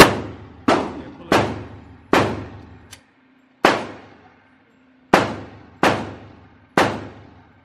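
Glock 23 pistol in .40 S&W fired eight times at an uneven pace, about half a second to a second and a half apart. Each sharp report rings out in the echo of an indoor range.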